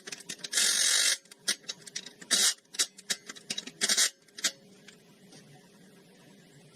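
Irregular clicks, clinks and short scraping noises of hand tools and metal parts being worked, which stop about four and a half seconds in.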